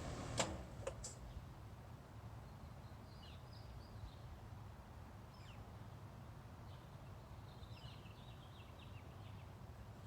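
A click about half a second in, after which a low machine hum drops away. Then a quiet background with faint bird chirps, scattered and then in a short run near the end.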